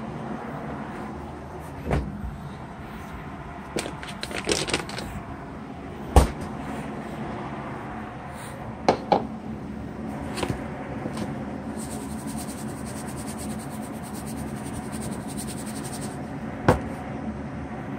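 Refrigerator door and containers being handled: several sharp knocks and clatters, the loudest about six seconds in, over a steady low hum.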